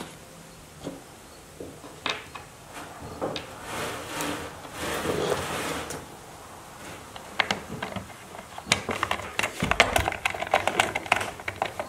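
Screwdriver turning a screw in a Stihl string trimmer's engine housing: handling knocks and rustling, then a run of rapid clicks in the last third.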